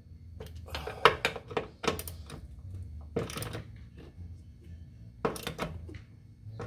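Metal wrench clicking and clinking against bolts and fuel-line fittings: clusters of sharp clicks about a second and two seconds in, a longer scrape about three seconds in, and another group of clicks a little after five seconds.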